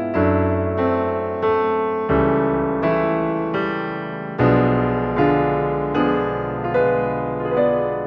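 Background piano music: a slow, gentle melody with a note struck about every two-thirds of a second, each ringing and fading away.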